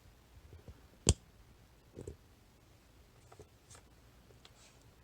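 Small steel lock sliders from a disassembled ASSA Desmo 8 cam lock being handled: one sharp click about a second in, a softer knock a second later, then a few faint taps.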